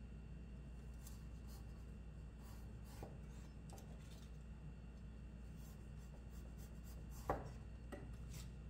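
Chef's knife finely chopping fresh ginger on a wooden cutting board: faint scraping and scattered light taps, with one sharper knock of the blade on the board about seven seconds in, over a steady low hum.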